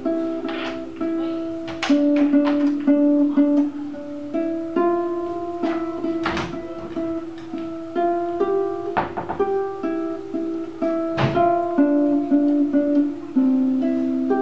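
Large wooden floor harp plucked by hand, playing a slow tune: each note rings and fades, with a higher melody over lower notes, and a few plucks sharper and louder than the rest.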